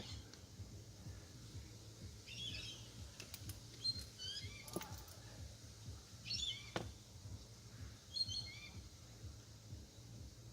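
A bird chirping in short descending phrases of high notes, one about every two seconds, with a couple of faint clicks between them.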